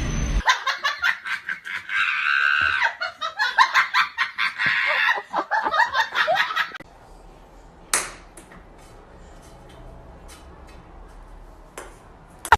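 A person laughing hard in rapid, high-pitched bursts for about six seconds, then it goes much quieter with a few faint clicks.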